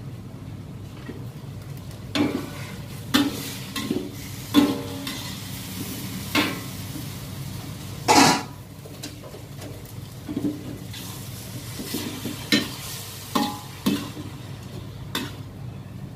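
Metal ladle clanking and scraping against a wok while noodles are stir-fried and sizzle, a dozen or so sharp strokes starting about two seconds in, the loudest about eight seconds in. Under it, the gas wok burner's flame gives a steady low roar.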